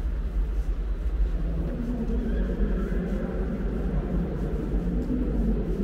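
Steady low rumble of background noise in a vast salt-mine cavern, with a faint, echoing murmur joining from about two seconds in.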